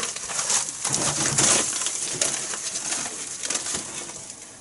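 Old newsprint pages crackling and rustling as they are handled and turned, loudest about a second or two in, with a low cooing behind it.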